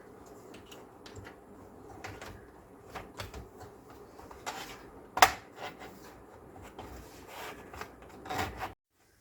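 Plastic guitar plectrum scraping along the seam of a laptop's plastic bottom cover as it is pried open, with scattered small plastic clicks. The loudest click comes about five seconds in, a few more near the end, then the sound cuts off abruptly.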